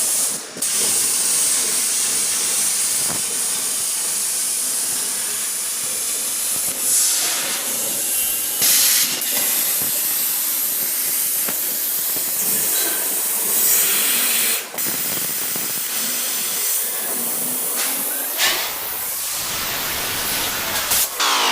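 A steady hissing noise that cuts out abruptly twice, with sweeping rising and falling tones near the end.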